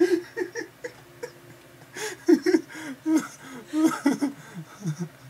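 People laughing in short, quick vocal bursts, with a brief lull about a second in before the laughter picks up again.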